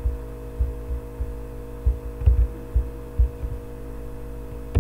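Steady electrical hum on the recording with several faint tones held level, and a few soft, irregular low thumps.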